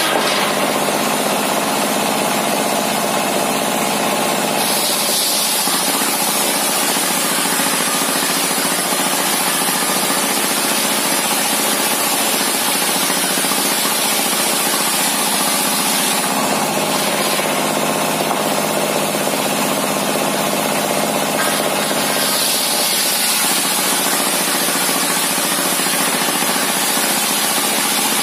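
Homemade table circular saw driven by a single-cylinder 'dompeng' diesel engine, running steadily while the blade rips a long plank lengthwise. The engine's drone holds even, and the high cutting hiss strengthens and eases several times as the plank is fed through.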